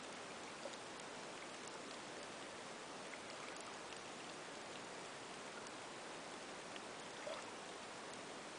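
Underwater ambience picked up by a submerged camera: a steady hiss with faint, scattered clicks and ticks.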